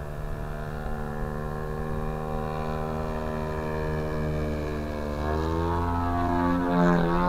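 Engine and propeller of a 40% scale SBach radio-controlled aerobatic plane in flight, running steadily and then rising in pitch and getting louder from about five seconds in as the throttle is opened or the plane comes closer.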